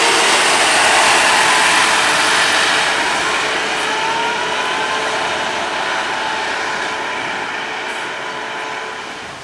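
A double-decker bus driving away along a concrete guided busway: the rush of its tyres and engine is loudest at first and fades steadily as it recedes, with a faint rising whine about four seconds in.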